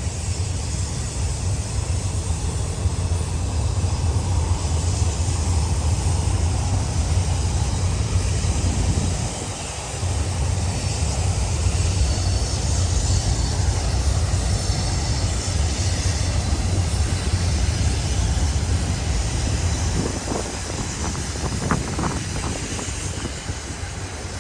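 Long, loaded auto-rack freight train rolling past: a steady rumble and clatter of steel wheels on rail, dipping briefly about ten seconds in.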